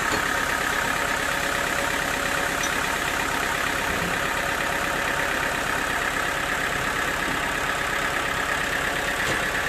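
Sawmill machinery running steadily, a constant mechanical drone that does not change.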